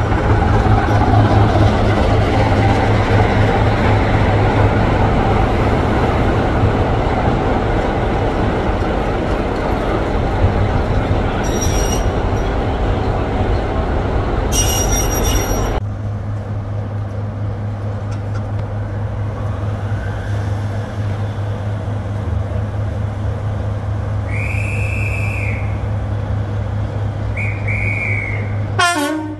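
Heritage diesel multiple unit's engines running loud and steady beside the platform, with two brief high squeals a little before halfway. About halfway through the sound cuts to a quieter steady diesel engine hum as a diesel locomotive draws in, with two short high tones near the end.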